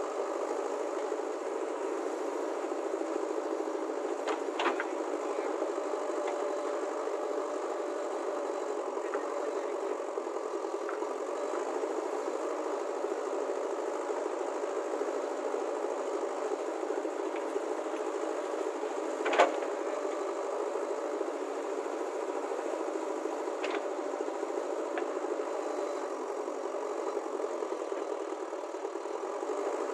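JCB backhoe loader's diesel engine running steadily as it digs and loads soil, with a few light knocks and one sharp knock about two-thirds of the way through.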